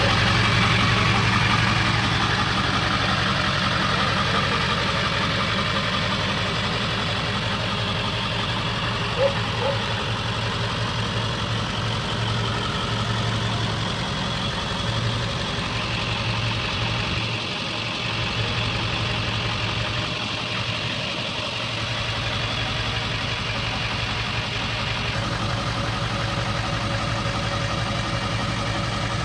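A 2002 Ford tow truck's engine idling steadily.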